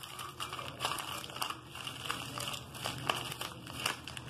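Plastic Oreo biscuit wrapper crinkling in the hand as crushed biscuits are shaken out of it into a ceramic mug, in irregular crackles throughout.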